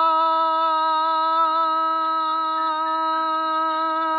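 A man singing one long, steady note, held at the same pitch without a break.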